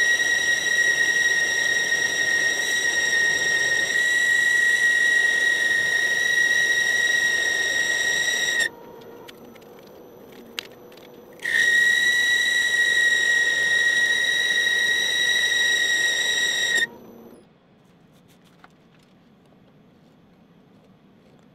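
Metal lathe cutting a part, the tool giving a steady high-pitched squeal with overtones, typical of tool chatter. The squeal breaks off for about three seconds near the middle, leaving the quieter run of the lathe, then returns. It stops about three-quarters of the way through as the lathe winds down.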